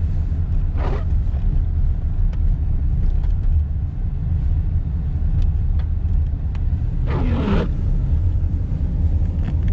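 Low, steady rumble of a car's engine and tyres heard from inside the cabin while driving slowly. Two short unidentified sounds stand out over it, one about a second in and a longer one about seven seconds in.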